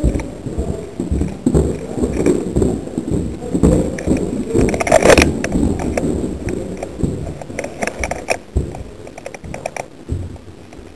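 Quick footsteps on a wooden floor with gear and clothing knocking and rubbing close to the body-worn microphone, in an uneven run of thumps. A short louder burst of noise about five seconds in.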